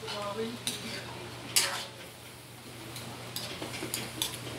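Metal spatula clinking and scraping against a metal wok while stirring chicken pieces, with scattered clanks, the loudest about a second and a half in.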